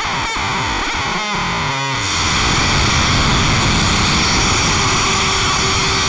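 Improvised avant-garde electronic score: distorted synthesizer noise with sweeping pitch glides, thickening into a dense, steady noise wash about two seconds in.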